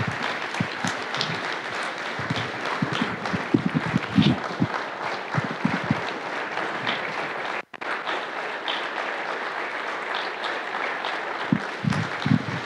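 Sustained applause from a large audience, many people clapping steadily, with a momentary break about eight seconds in.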